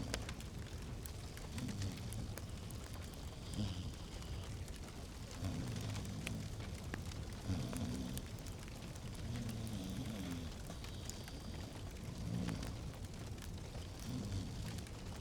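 Fireplace fire crackling, with scattered small pops over a low steady rumble.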